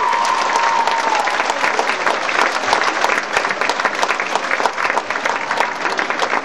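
Theatre audience applauding, a dense patter of many hands clapping. A held tone dies away in the first second as the clapping builds.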